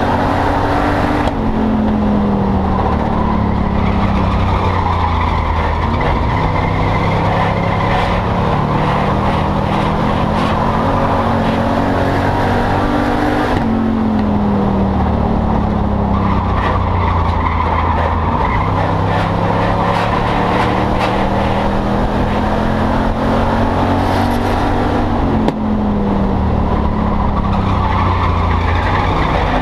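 Enduro race car's engine heard from inside the cockpit at race speed. Its note climbs slowly, then drops off sharply as the throttle is lifted; this happens twice, about halfway through and near the end.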